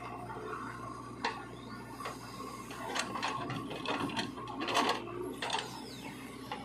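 JCB 3DX backhoe loader's diesel engine running steadily as the backhoe arm swings a loaded bucket over a tractor trolley. Its soil is dumped into the trolley with scattered knocks and rattles, loudest about three to five seconds in.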